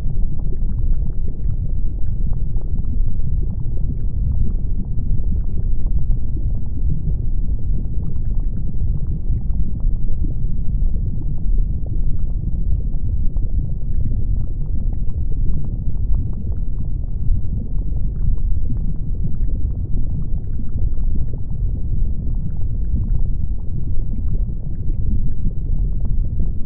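Erupting volcano and flowing lava: a deep, steady rumble with many small crackles and pops scattered through it.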